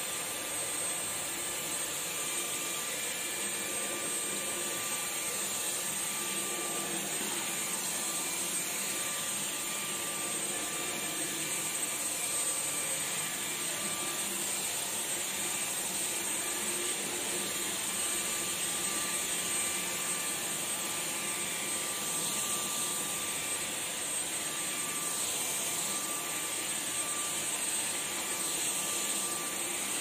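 Tineco cordless stick vacuum running steadily as its floor head is pushed across a tile floor: an even rush of air with a thin high-pitched motor whine.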